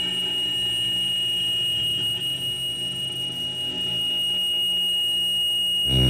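Live experimental electronic noise music: a steady high whistle-like tone held over a low droning hum. Just before the end it switches abruptly to a louder, buzzing low drone of several stacked tones.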